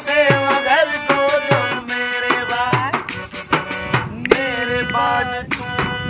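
A harmonium playing a melody, with voices singing over it and a steady beat struck on a hand-held frame drum with jingles.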